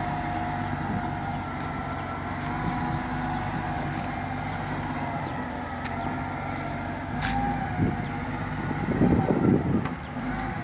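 Bulldozer working: its diesel engine runs steadily, with faint clanks and a louder rough swell of engine noise near the end.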